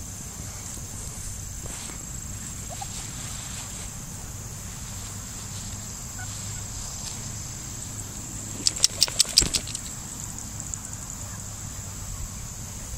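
Steady high-pitched insect chorus over a low rumble. About two-thirds of the way in comes a quick run of about six sharp clicks, the loudest sound.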